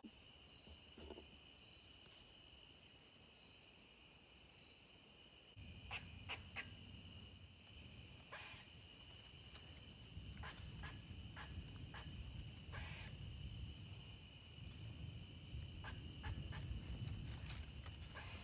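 Crickets trilling steadily, a continuous high-pitched chorus at two pitches, with scattered faint clicks and rustles and a low rumble from about six seconds in.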